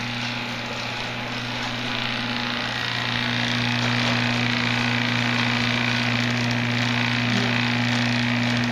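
A small electric motor running steadily with a low hum and a whirring haze, getting a little louder about two to three seconds in.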